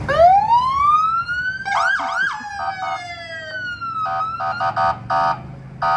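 Fire truck siren winding up into a high wail, yelping twice quickly, then sliding back down. Over the last couple of seconds it gives way to a string of short horn blasts.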